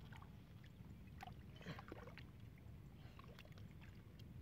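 Faint squelching and sloshing of hands working in wet mud and shallow water, with scattered small clicks over a low steady background.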